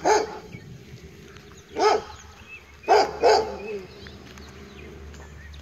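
A dog barking: four single barks, one at the start, one about two seconds in, then two in quick succession about a second later.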